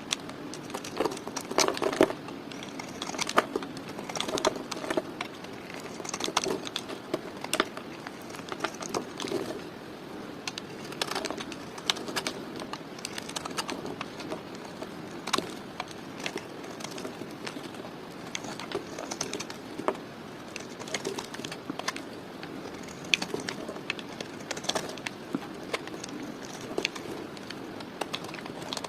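A blade cutting through dry soap: irregular crisp crackles and clicks as the soap cracks and flakes, a few sharper snaps among them, over a steady low hum.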